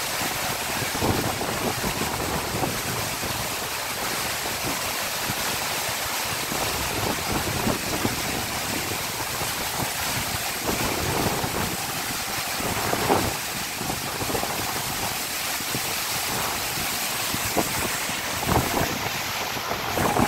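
A waterfall pouring onto rocks close by: a steady, loud rushing noise, with irregular gusty thumps of spray and wind hitting the microphone.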